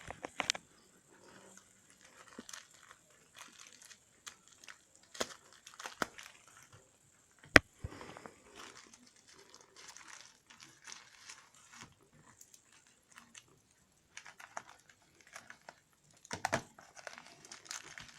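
Plastic packaging being handled and worked open by hand: on-and-off crinkling and crackling with scattered clicks, one sharp click a little before halfway and a louder flurry near the end.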